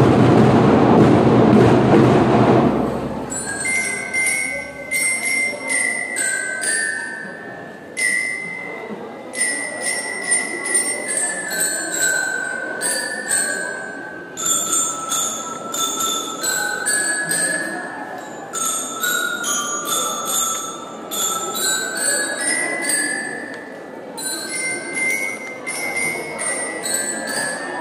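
A school drum and lyre corps: the full band with drums plays loudly for about the first three seconds, then the bell lyres carry a melody on their own, one struck, ringing metal note after another.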